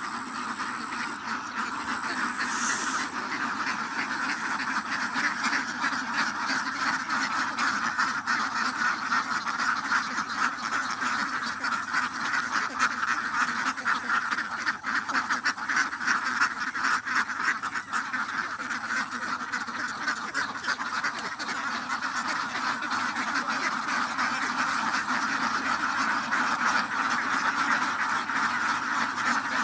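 A large flock of domestic ducks quacking all at once, a continuous dense din of many overlapping calls.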